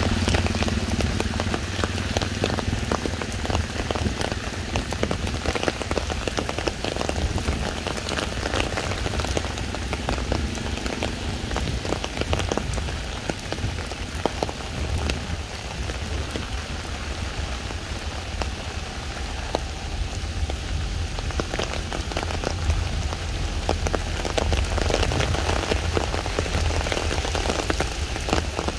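Steady rain falling on a wet road and its surroundings, a dense spatter of many separate drops.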